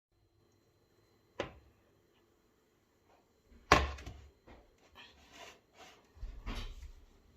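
Knocks and clatter of things being handled in a kitchen. There is a sharp knock about a second and a half in, a louder thud near four seconds, softer knocking and rustling after it, and another thud about six and a half seconds in.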